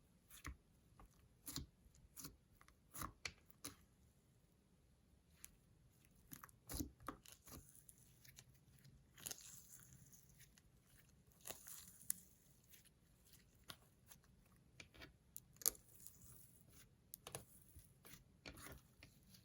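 Slime being worked and mixed by hand, making faint, irregular sticky clicks and pops with a few brief crackling rustles.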